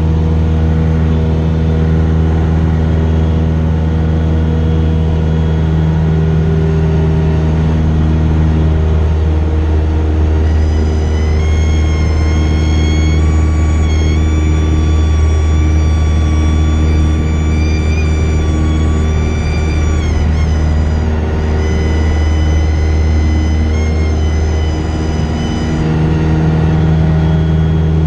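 Cessna 172S's Lycoming IO-360 four-cylinder engine running steadily at power. From about ten seconds in until near the end the stall warning horn sounds a steady high tone, wavering briefly a couple of times and growing fainter before it stops: the wing is nearing the stall during a power-on stall.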